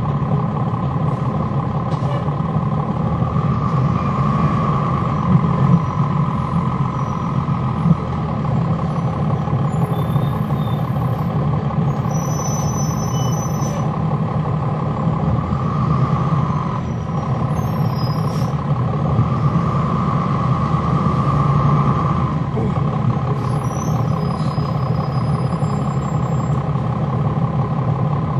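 On-board sound of a 2011 NABI 40-SFW transit bus: its Cummins ISL9 diesel engine running with the engine cooling fans on, a steady drone that swells slightly now and then.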